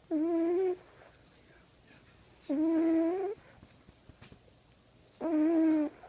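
Squeaky, whining snores: three breaths each held on one steady high tone for under a second, about every two and a half seconds, in a sleep-breathing rhythm.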